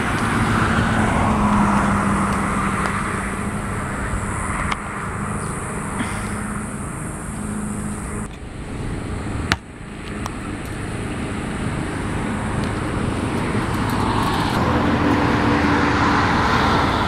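Steady road traffic noise from passing cars, with a hum that fades after the first few seconds and a single sharp click about nine and a half seconds in.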